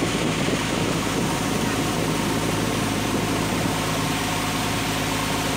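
Fishing boat's engine running steadily, a constant low hum, over an even rush of water and wind.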